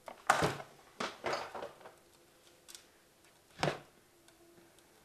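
Plastic knocks and clatters as the Thermomix Varoma steaming attachment is handled and set in place. Several sharp knocks come in the first second and a half, and one more a little after three and a half seconds in.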